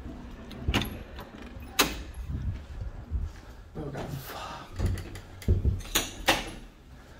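Footsteps on a hard floor with a handful of sharp knocks and clicks, the loudest about two seconds in and two more close together near six seconds.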